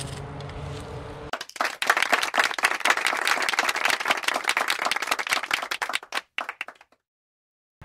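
Wind on the microphone, then about a second in a burst of applause, many hands clapping, which thins to a few last claps and cuts off to dead silence near the end.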